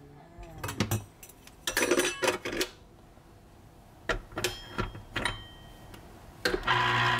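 Scattered light clicks, clinks and knocks of kitchenware being handled and set down, in a few short clusters, with a louder clatter near the end.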